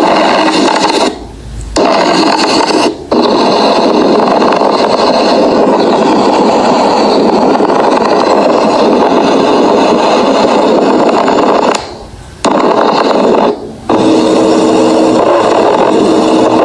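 Recorded abnormal lung sounds as heard through a stethoscope: a harsh, raspy crackling noise in several segments separated by brief gaps. About two seconds from the end a steady low musical tone joins it.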